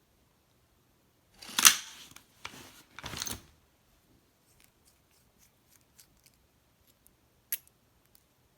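Handling noise of small gear: a sharp scraping rustle about one and a half seconds in and two shorter ones after it, then faint scattered ticks and one sharper click near the end.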